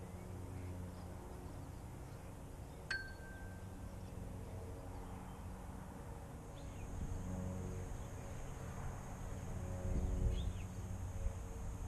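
Low outdoor background rumble with a single short metallic ding about three seconds in, ringing briefly. A few faint chirps come later, and the rumble swells near the end.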